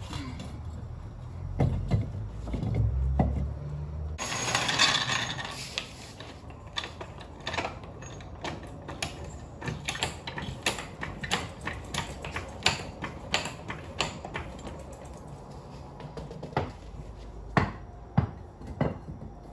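Irregular metallic clicks and knocks from mounting a golf cart wheel: lug nuts, studs and tools being handled, at roughly one to three knocks a second. There is a short burst of noise about four seconds in.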